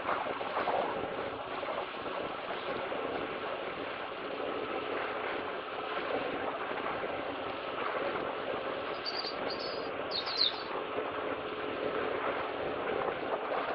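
Steady outdoor rumble and hiss from the camera moving along a tarmac path, with a small bird chirping a few short notes about nine to ten and a half seconds in.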